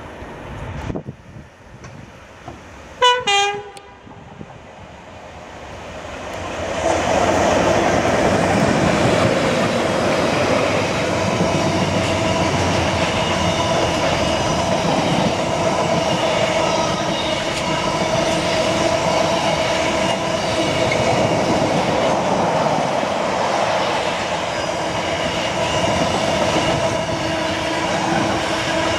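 Two-tone horn of an approaching Class 86 electric locomotive, sounded once about three seconds in: a short high note, then a lower one. From about seven seconds the double-headed Class 86s and their container wagons pass close by, a loud steady rumble of wheels on rail with some ringing tones.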